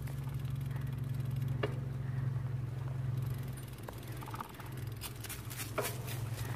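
Bicycle rolling along a paved path with a steady low hum. About five seconds in, a quick run of regular ticks starts.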